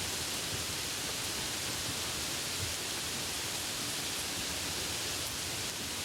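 Steady heavy rain falling, a dense even hiss with a light low rumble underneath.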